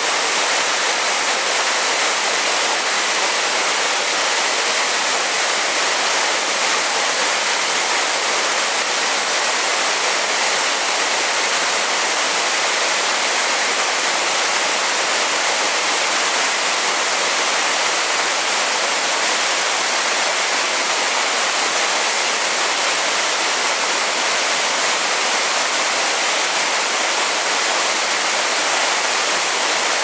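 Waterfall cascading down tiers of rock: a steady, even rush of falling water.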